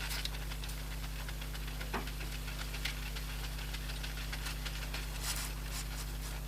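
Faint light rubbing and small handling clicks, with a brief scrape about five seconds in, from a cloth wiping dust off a tablet's glass screen, over a steady low electrical hum.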